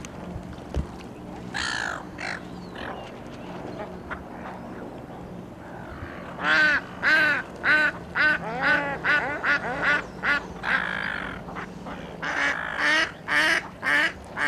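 Ducks quacking: a long run of rapid, loud quacks starting about halfway through, then a second run near the end.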